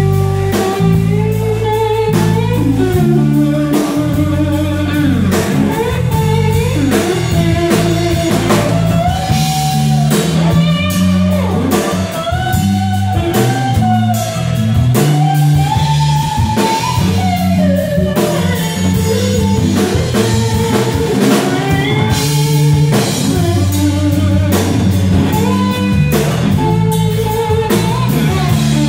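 A live band playing: an electric guitar carries a lead melody of held, sliding notes over bass and drum kit, heard through the room.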